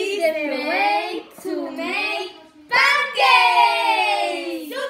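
Young girls' voices singing together: a short sung phrase, then a long held note that falls slowly in pitch near the end.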